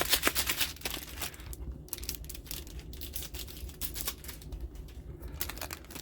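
Crinkling and crackling of a trading-card booster pack wrapper being handled and opened, loudest in the first second.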